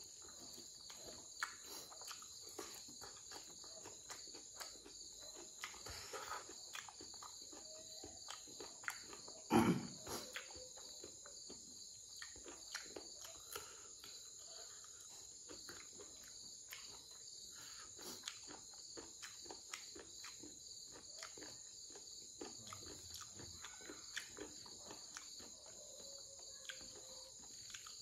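Close-miked eating of pork ear and rice by hand: many short wet mouth clicks and chewing sounds, with one louder thump about ten seconds in. A steady high chirring of crickets runs underneath.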